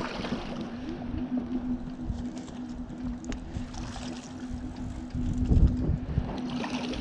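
Wind buffeting the microphone over a steady low hum, with a stronger gust about five and a half seconds in and a few faint clicks. Light water splashing as a hooked Atlantic salmon is netted at the surface.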